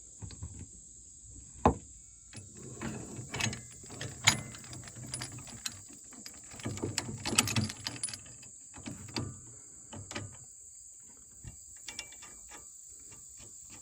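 Hand tools and steel parts clicking and knocking while a new sway link is fitted to the lower arm of a compact tractor's three-point hitch, in irregular spurts with two sharper knocks, one about a second and a half in and one about four seconds in. Crickets chirp steadily throughout.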